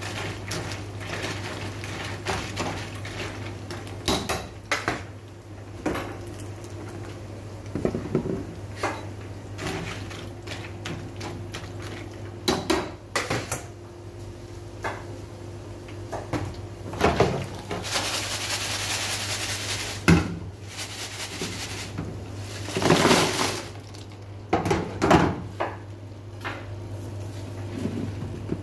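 Metal tongs clattering and scraping in a deep fryer's wire basket of frying tortilla chips, with scattered knocks over a steady low hum. A louder rushing hiss swells for about two seconds midway through.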